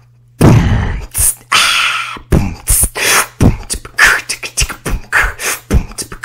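A woman beatboxing into a close microphone: strong mouth-made kick thumps roughly a second apart, with quick sharp clicks and hissy hi-hat strokes between them, starting after a brief silence.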